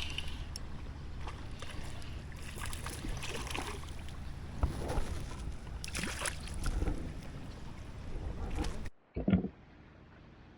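Wind rumbling on the microphone with scattered splashing of water as a hooked creek fish is fought in. The sound cuts out abruptly near the end, leaving a brief low thump and faint hiss.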